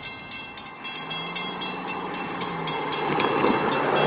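Railroad grade-crossing warning bell ringing in a fast, even rhythm of about four strokes a second, the sign that the crossing signals have activated for an approaching train. A low hum and rising noise build underneath toward the end.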